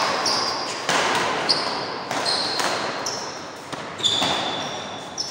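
Badminton rally: rackets striking the shuttlecock in a quick exchange of sharp hits about once a second, each trailing off in the echo of a large hall, with brief high shoe squeaks on the court floor.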